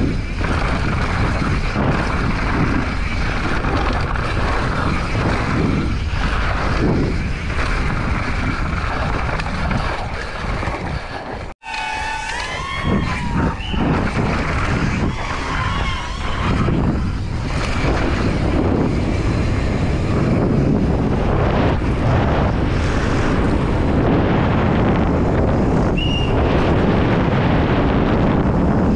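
Wind rushing over an action camera's microphone as a downhill mountain bike goes fast over dirt, with the tyres and bike rattling over the ground. About twelve seconds in the sound cuts out for an instant, and just after it a few wavering high calls, like shouts or whistles, rise and fall briefly.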